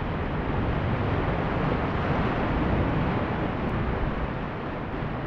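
Roar of a strong tidal current heard underwater: a steady, dense rushing noise, likened to a passing freight train.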